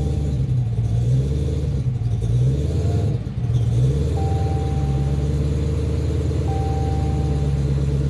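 Dodge Challenger SRT Hellcat Redeye's supercharged 6.2-litre HEMI V8 idling, its note dipping briefly about three seconds in. A steady electronic beep sounds twice, about a second each, in the second half.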